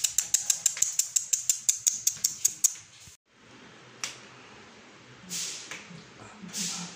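A person clicking their tongue rapidly to call puppies, about six even clicks a second; the clicks stop after about three seconds. A few soft, breathy puffs follow.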